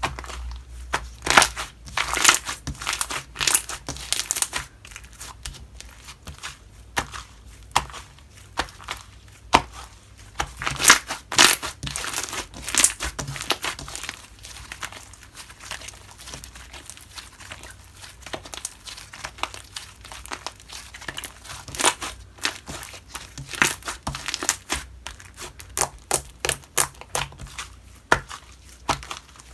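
Homemade slime being squeezed and worked by hand, giving off irregular runs of sharp crackling clicks and pops.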